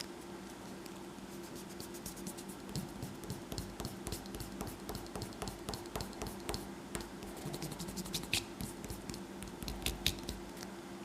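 Eraser rubbing over paper to remove a pencil drawing: faint scratchy strokes with many small ticks and scrapes, a little louder in the second half.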